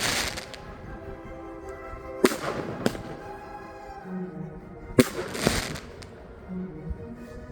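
Weco Wolfblood firework battery firing shots: sharp bangs about two seconds in, just under three seconds in, and about five seconds in, each trailing off in a brief crackle. Music plays underneath.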